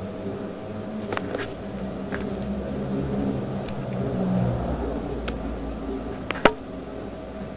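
A low mechanical hum, swelling about four seconds in and then sinking to a deeper rumble. Scattered light clicks run through it, with one sharp knock about six and a half seconds in.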